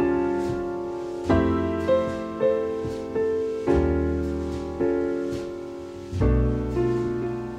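Background piano music: a slow, gentle tune, with notes and chords struck every half second to a second and a half, each ringing on and fading away.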